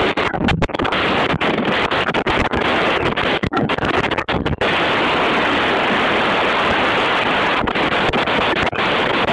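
Loud, steady wind rush on the microphone of a camera moving along at speed with a motor scooter. The sound cuts out for split seconds several times in the first half.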